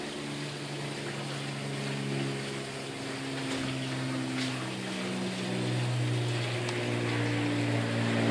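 A motor running, its hum shifting in pitch every second or two, over a constant hiss.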